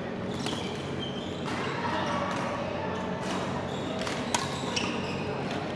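Badminton rally: sharp cracks of rackets striking the shuttlecock about once a second, the loudest about two-thirds of the way through, with short squeaks of court shoes on the floor.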